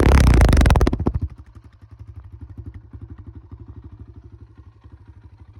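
Kawasaki KLX140R dirt bike's single-cylinder four-stroke engine revved high, then dropping back to idle about a second in and settling into a steady, even beat. Pretty loud for a trail bike.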